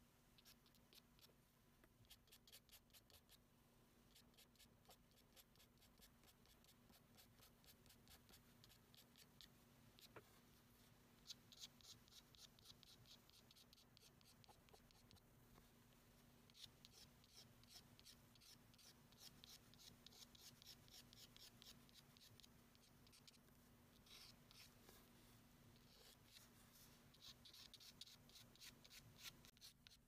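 Felt-tip pen scratching quick short hatching strokes on paper, several strokes a second, in spells with brief pauses. Faint.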